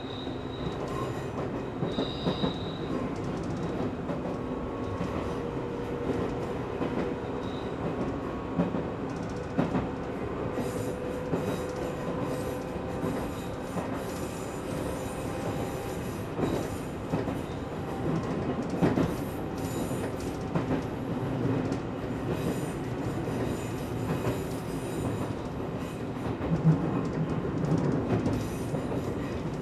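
Izuhakone Railway Sunzu Line electric train running along the track: a steady running noise with irregular clicks of the wheels over rail joints, and a brief high wheel squeal about two seconds in.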